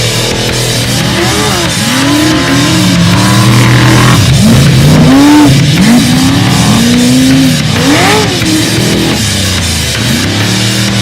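Off-road race vehicle engines revving in repeated sweeps that climb and fall, several in quick succession, over loud heavy metal music.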